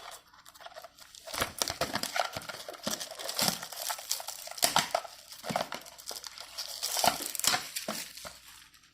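Plastic trading card packaging crinkling and tearing as it is worked open by hand: a busy run of crackling rustles that starts about a second in and dies away near the end.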